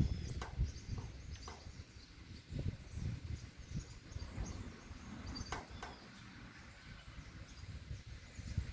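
Wind buffeting the microphone in uneven low gusts, with a few short bird chirps.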